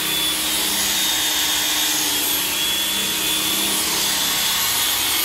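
Handheld electric car polisher running steadily, its pad buffing the painted fuel-filler door.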